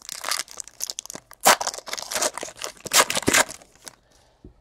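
Foil wrapper of a baseball card pack being torn open and crumpled by hand: dense crinkling and crackling, loudest twice in the middle, stopping about four seconds in.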